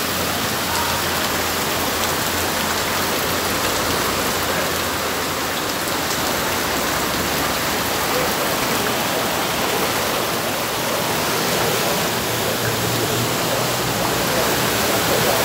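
Heavy rain falling onto a flooded street: a loud, steady hiss of drops splashing into the standing water.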